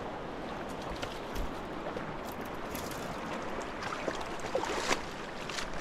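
Steady rushing of a large, fast-flowing river, with a few faint clicks over it.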